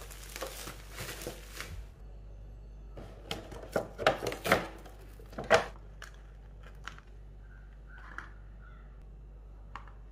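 Bubble wrap and plastic packaging crinkling as a doll is unwrapped and pulled from its box, with a cluster of sharp plastic crackles and clicks between about three and six seconds in, then a few small clicks.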